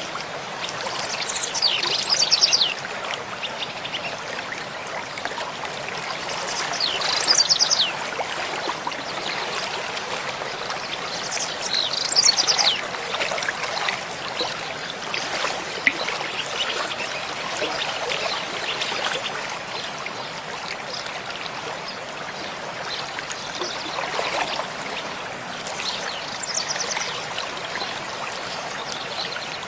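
Stream running steadily, with a songbird singing a short high falling phrase three times in the first half, about five seconds apart, and once more near the end; the bird phrases are the loudest sounds.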